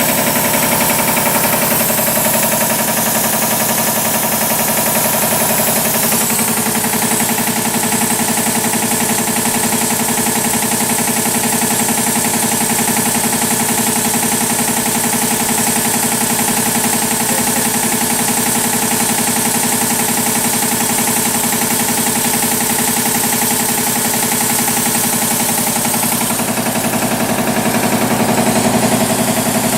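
25 hp Kellogg 462 four-cylinder reciprocating air compressor running with a steady, rapid knocking from its connecting rods, the sign of worn rod bearings on three of its four rods. The tone shifts about six seconds in.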